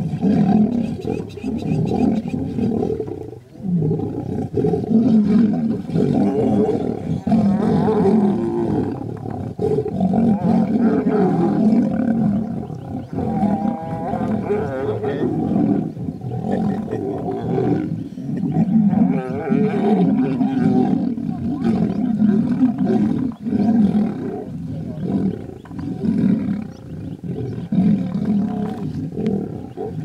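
Two male lions fighting, roaring almost without pause in loud, rough calls that rise and fall in pitch.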